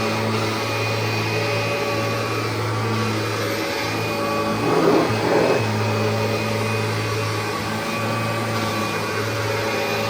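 1990 Kirby Generation 3 upright vacuum, with a nylon fan, running steadily on carpet, a steady motor hum and rush of air. About halfway through the sound briefly swells louder for about a second, then settles back to the steady hum.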